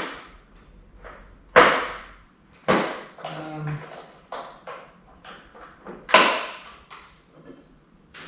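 Electronic torque wrench being handled and packed into its box: three sharp knocks, about one and a half, two and a half and six seconds in, among lighter taps and clicks.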